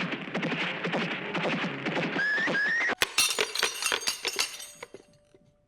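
Horse neighing over a dense clatter of hooves and commotion. About three seconds in, the sound cuts abruptly to a crash of sharp clattering impacts that dies away over the next two seconds.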